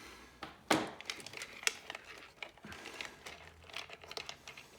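Irregular crinkling and small clicks of hands handling parts and wiring during a cassette four-track teardown, with a couple of sharper clicks about a second in and near the middle.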